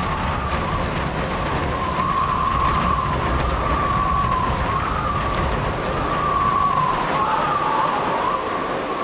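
Stormy ambience: a steady rain-like hiss over a low rumble, with a high whistling tone that wavers slowly up and down throughout.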